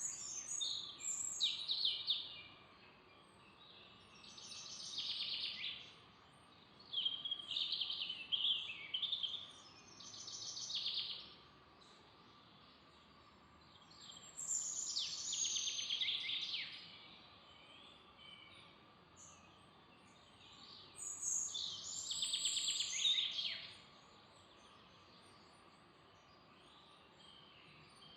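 Songbirds singing in short, high phrases of a second or two, coming every few seconds over a faint steady background hiss.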